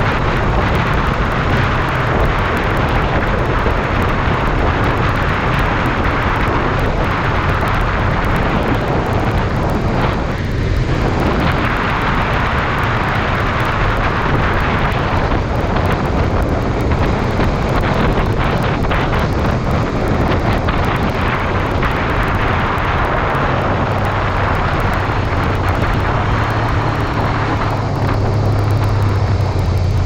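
Wind rushing over the microphone mixed with the steady running of a 2014 Honda CBR500R's 471 cc parallel-twin engine at road speed. The engine hum grows stronger in the last few seconds.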